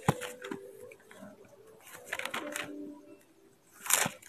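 Pages of a thumb-indexed Bible being turned, a few short papery swishes, the loudest about four seconds in.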